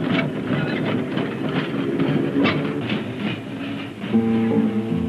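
Electric tram clattering and rattling along the rails. About four seconds in, plucked guitar music comes in.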